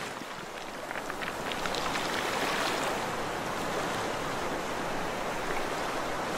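Rushing water with a light crackle, swelling over the first couple of seconds and then holding steady.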